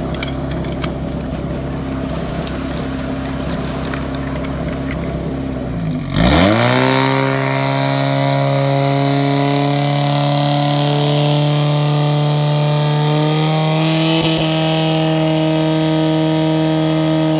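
Portable fire pump's engine running steadily, then revved sharply up to full throttle about six seconds in and held at a steady high pitch while it drives water through the hose lines.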